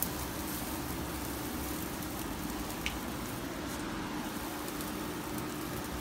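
Steady hiss with a low hum from a commercial gas grill burning charcoal under yakitori skewers, with a light click about three seconds in.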